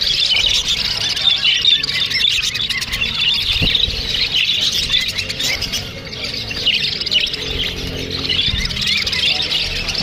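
A flock of caged budgerigars chattering together: many overlapping high chirps and warbles, with no pause.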